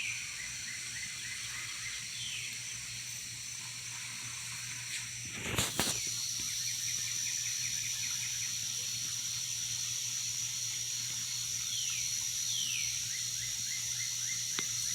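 Outdoor night ambience: a steady high-pitched insect drone over a faint hiss, with a bird repeating a short song of a down-slurred note followed by a fast trill several times, and one sharp click about five and a half seconds in.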